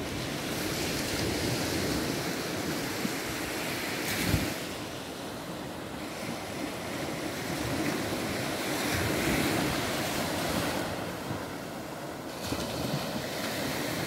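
Baltic Sea surf washing onto a sandy beach: a steady wash of small breaking waves that swells and ebbs, with wind buffeting the microphone. A brief thump about four seconds in.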